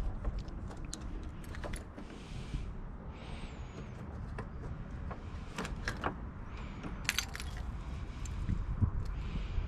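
Scattered light clicks and metallic rattles of parts and hand tools being handled while fasteners are worked loose, over a low steady rumble.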